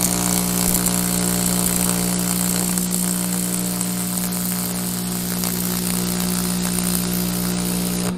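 AC TIG welding arc from a buzz-box welder with a high-frequency start box, laying a bead on a cracked cast clutch housing: a steady electrical buzz with a crackling hiss, which cuts off at the end.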